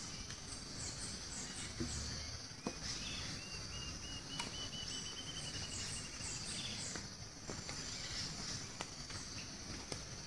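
Forest ambience: a steady high-pitched insect chorus with birds chirping over it, and in the middle a run of quick, evenly spaced notes lasting about three seconds. A few scattered clicks.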